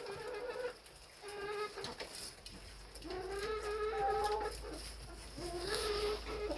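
Chickens calling: about four drawn-out, fairly even-pitched calls, the longest about a second and a half.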